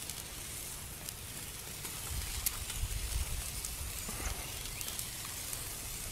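Steaks on a grill grate and eggs in a cast-iron skillet sizzling over a wood fire: a steady hiss with a few faint pops. A low rumble comes in about two seconds in and fades about two seconds later.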